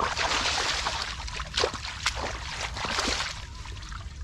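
Hands splashing and sloshing in shallow muddy water, groping through the mud for fish, with a run of small irregular splashes that eases off after about three seconds.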